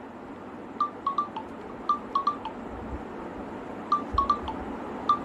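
Mobile phone ringtone: short, high electronic beeps in quick groups of three or four, the group repeating four times.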